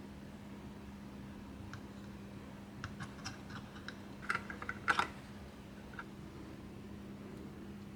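Light clicks and taps from handling small PC parts and their packaging, in scattered clusters that are loudest about halfway through, over a low steady hum.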